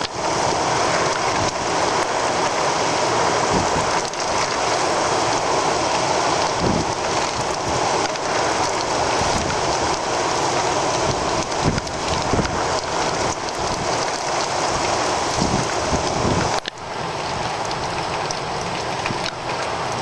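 Heavy cloudburst rain pouring down in a dense, steady hiss. It drops out for a moment about three-quarters of the way through, then carries on slightly quieter.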